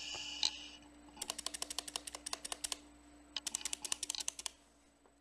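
Clicky blue mechanical switches on a HyperX keyboard being typed in two quick bursts of rapid key clicks, heard through a cheap webcam microphone. A brief hiss opens the first second before the typing.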